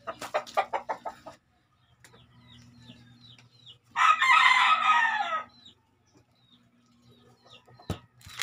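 A gamecock crowing once, about four seconds in, a loud call of roughly a second and a half that falls in pitch at the end, after a quick run of clucks at the start. A single sharp knock comes near the end.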